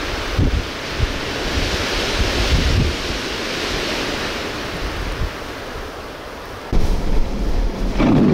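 Strong wind blowing steadily and gusting, buffeting the microphone in low rumbles, with heavier buffeting near the end.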